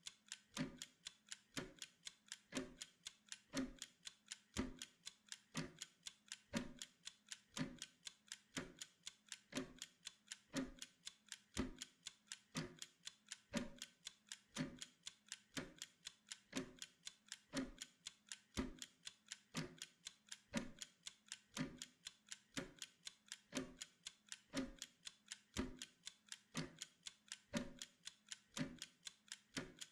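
Steady, even mechanical ticking of a clock-style timer, one sharp click after another at a regular pace.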